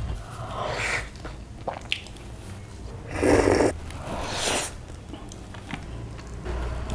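Close-miked eating sounds: bites into a malai chaap roll and mouthfuls of chicken biryani eaten by hand, heard as a string of short bite and chew noises. The loudest comes about three seconds in.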